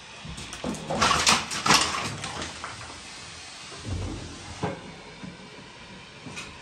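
Old kitchen cabinets being taken apart: a quick run of sharp knocks and rattles about a second in, then a dull thump and a single knock.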